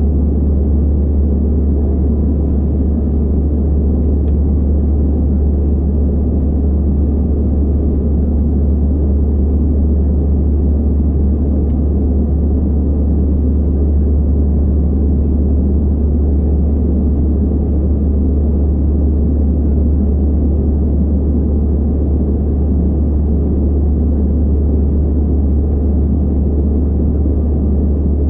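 Steady, low drone of an Airbus A320-216 in flight, heard inside the cabin: its CFM56 jet engines and the rush of air over the fuselage, with a faint steady hum on top.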